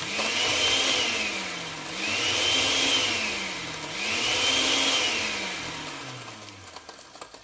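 Electric blender whirring in three swells about two seconds apart, its pitch rising and falling with each, the last swell fading away.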